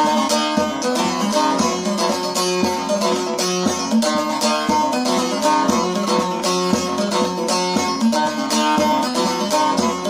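Bağlama (long-necked Turkish saz) played with a plectrum in an instrumental interlude of an Alevi duaz-ı imam hymn: quick, dense strokes over a steady low drone note.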